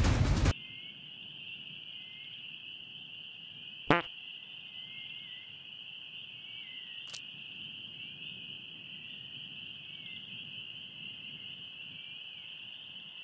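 Music cuts off half a second in, leaving a steady cricket-like insect chirring of pond ambience. About four seconds in comes one short, loud frog croak, and a faint click follows near seven seconds.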